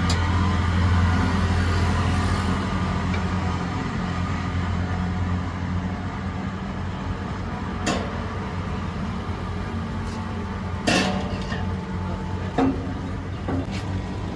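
Steady low hum of road traffic with a vehicle engine running, broken by a few sharp clicks or clatters in the second half.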